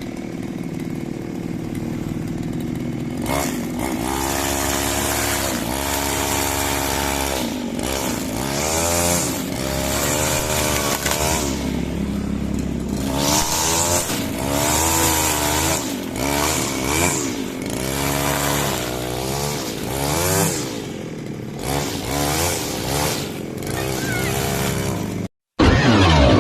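Small lawn mower engine running, steady at first, then from about three seconds in revved up and down over and over, its pitch rising and falling about once a second. The sound cuts off suddenly near the end.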